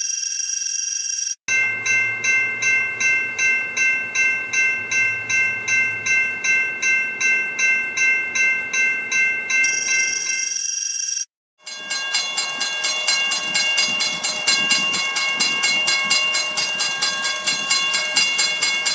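Japanese railroad crossing warning bells ringing in a steady rhythm of about two strokes a second, in two stretches cut apart by a brief silence about 11 seconds in, the second set pitched differently and ringing a little faster over the rumble of a passing train. A short high steady tone sounds at the start and again about 10 seconds in.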